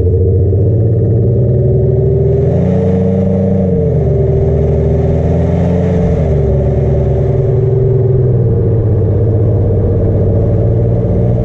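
Car exhaust heard right at the rear tailpipes while driving: the engine note climbs about two seconds in, drops back, climbs again around five seconds and falls away, then settles into a steady cruise.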